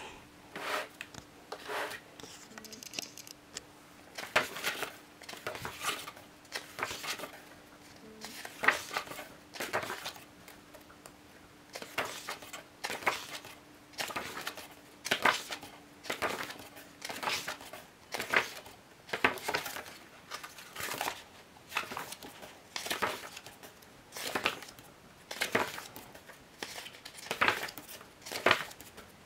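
Thick pages of a large photo book being turned one by one by hand. Each turn makes a short papery rustle and flap, about every one and a half to two seconds.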